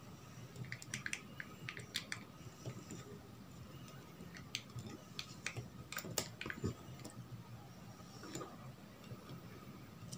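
Faint scattered clicks and rustling of male-to-male jumper wires being handled, their pins pushed into an Arduino Uno's header sockets. The clicks come in small clusters, about a second in and again around five to six seconds in.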